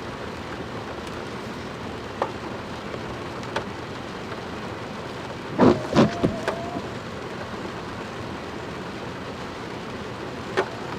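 Heavy rain falling steadily in a thunderstorm, with a few sharp taps or knocks scattered through it. The loudest is a cluster of knocks about six seconds in, with a brief steady tone.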